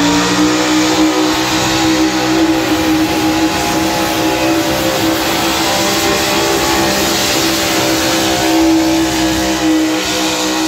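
Pickup truck engine held at full throttle at a steady high rev, dragging a weight-transfer pulling sled under load.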